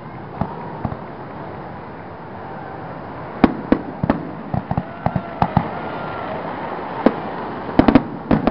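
Aerial fireworks shells bursting: a quick run of sharp bangs starting about three and a half seconds in, a single bang a little after seven seconds, and another tight cluster near the end.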